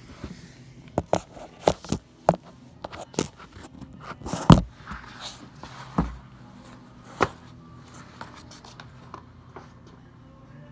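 Handling noise close to the microphone: a string of sharp knocks and clicks with some scraping, the loudest knock about four and a half seconds in, then only a few faint clicks.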